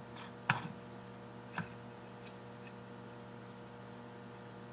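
Small metal parts clicking as a pin is dropped into a model engine's valve-train linkage: one sharp click about half a second in and a smaller one a second later, over a steady electrical hum.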